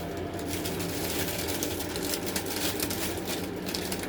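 Rapid rustling and crackling of gift-basket packaging and items being handled, over a steady low background hum.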